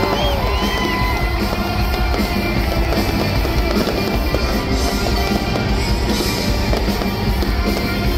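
Loud music with fireworks bursting over it.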